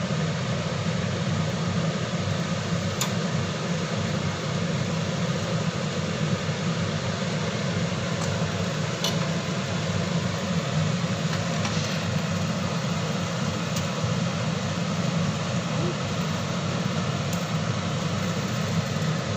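Steady low whirring noise, like a fan or burner, running throughout, with a few faint clicks.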